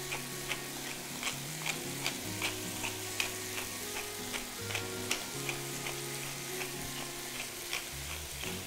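Salt cod, onions and peppers sizzling in a frying pan while a wooden pepper mill is twisted over it, grinding with light, regular clicks about two or three a second.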